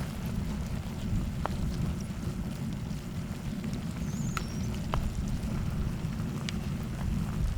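Spicy stir-fried small octopus sizzling on a cast-iron cauldron lid, over a steady low rumble, with a few sharp clicks of a utensil against the lid.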